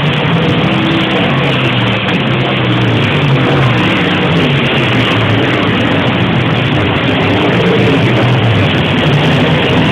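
Modified-class race cars running at racing speed around the track: a loud, continuous engine sound from several cars at once, its pitch drifting up and down as they pass and throttle through the turns.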